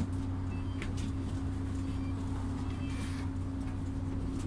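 Volvo Carrus City bus engine running steadily, a low hum with two held tones and a few faint ticks and rattles.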